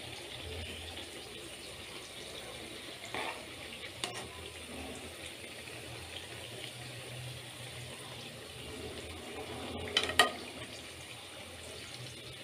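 Masala vadas (chana dal fritters) deep-frying in a kadai of hot oil, a steady bubbling sizzle. A spatula clicks against the pan a few times, most sharply twice about ten seconds in.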